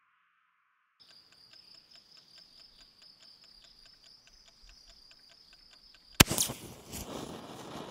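Clockwork oven timer ticking rapidly and steadily. About six seconds in the timer closes the circuit and the rocket-motor igniter fires with a single sharp, loud crack, then fizzes and hisses as it burns.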